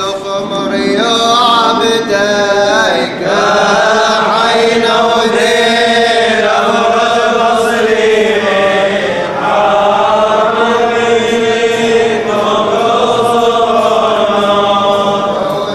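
Liturgical chant of the Syriac Catholic burial-of-the-cross service: slow melismatic singing on long held, wavering notes, with a brief break about three seconds in.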